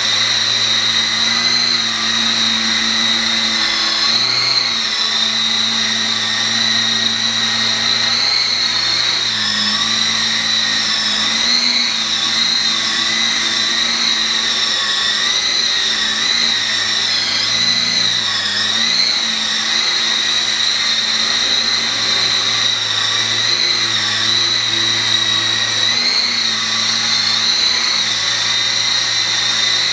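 Electric motors and gear train of an E-sky Lama coaxial RC helicopter whining steadily, the pitch wavering slightly up and down with the throttle.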